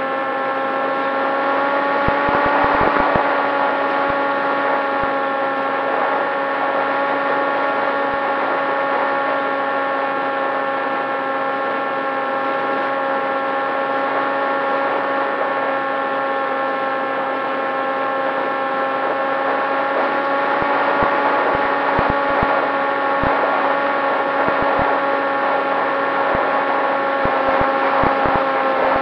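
Popwing FPV flying wing's electric motor and propeller whining at a steady pitch, heard through the onboard camera. Wind buffets the microphone a few seconds in and again over the last several seconds.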